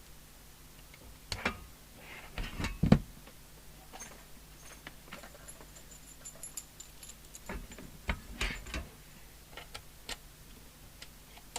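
Scattered clicks and knocks of leads and crocodile clips being handled and connected, as a CB radio is hooked up to test equipment on a bench. They come in clusters, the loudest knock a little under three seconds in.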